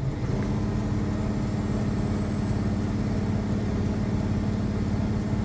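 A truck's engine running steadily, heard from inside the cab, with a low rumble and a steady hum that sets in just after the start.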